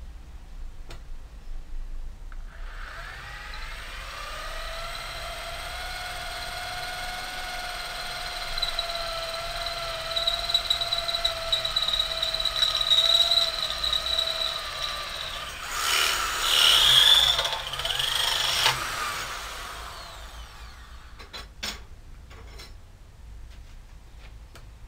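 Corded electric hand drill boring into a metal bar. The motor's steady whine starts about two seconds in, and a few seconds before it stops it turns to a louder, harsher screech as the bit cuts the metal. The drill stops about four seconds before the end, followed by a few light clicks.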